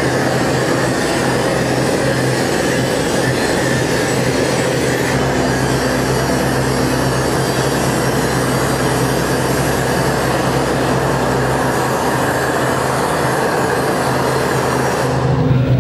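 Loud, steady rumbling noise with a low hum underneath. Near the end the hiss drops away and music with held tones takes over.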